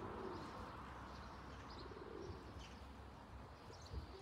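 A pigeon cooing, two soft low calls about a second and a half apart, with small birds chirping faintly and briefly high above it.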